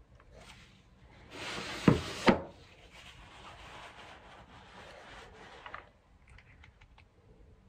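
Paper tissue rustling as it is handled at a tissue box, with two sharp knocks about two seconds in, then softer rubbing and a few faint ticks.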